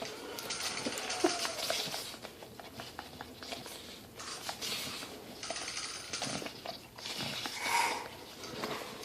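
Bulldog making a run of noisy, breathy snuffling sounds, several in a row about a second each, with a short higher-pitched squeak about eight seconds in.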